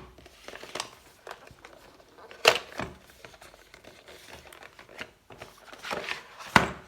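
Crinkling and rustling of packaging being handled, broken by short sharp clicks and knocks, the loudest about two and a half seconds in and near the end.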